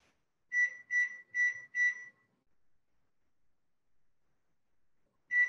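Keypad beeps of a digital timer being set: four short, high electronic beeps about half a second apart, then a single beep near the end.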